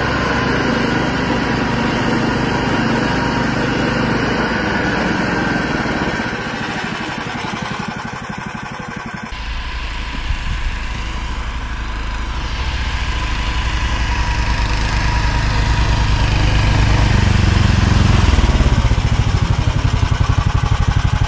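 Snowmobile engine running, heard from on board the moving machine. About nine seconds in the sound changes abruptly to a snowmobile engine running close by, growing louder toward the end.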